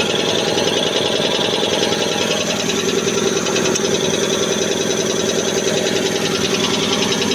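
High-pressure six-cylinder air compressor running steadily, with a rapid, even pulsing from its pistons.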